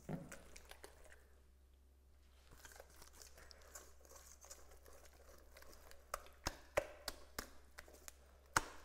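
Wire whisk stirring thick batter in a stainless steel bowl: faint soft stirring noise, with several sharp clicks of the whisk against the bowl in the second half.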